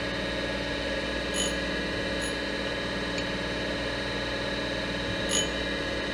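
Surface grinder running, its wheel grinding a small flat on a half-inch brass ball: a steady hum of the spindle motor and wheel, with three short high ringing ticks.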